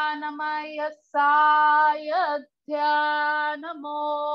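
A woman chanting wordless, light-language syllables, sung in three long phrases on a nearly steady pitch. There are short breaks about one second and two and a half seconds in, and a brief upward swoop just after two seconds.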